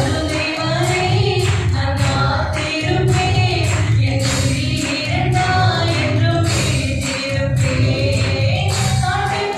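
A group of voices singing a song to instrumental accompaniment with a steady beat.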